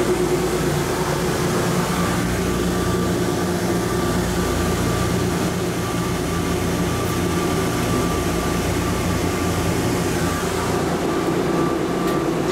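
Automated people-mover train running through a concrete tunnel: a steady rumble of running noise with a constant electric-drive hum, easing off near the end as it comes to a stop at a station.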